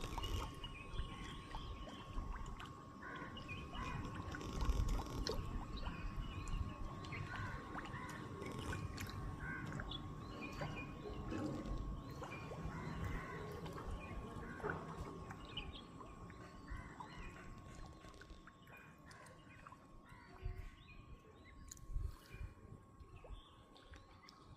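Many small birds chirping and calling in short, scattered notes over a low, uneven rumble, with a steady thin high tone underneath. The rumble fades toward the end, where a few sharp knocks stand out.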